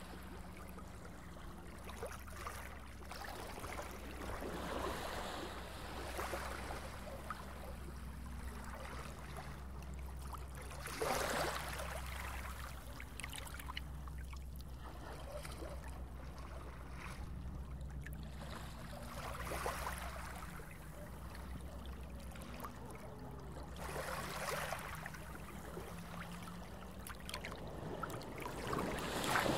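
Underwater ambience: running water over a steady low rumble, with faint low tones drifting up and down. The water sound swells several times, most strongly about eleven seconds in and near the end.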